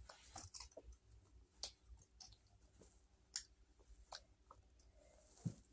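Near silence: quiet room tone with a dozen or so faint, scattered clicks and taps.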